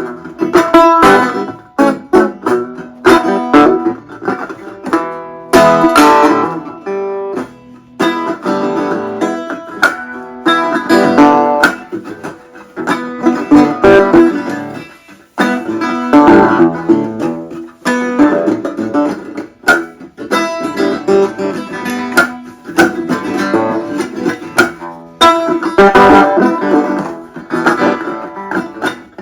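Dobro (resonator guitar) being played: phrases of plucked notes that ring on, with brief pauses between phrases.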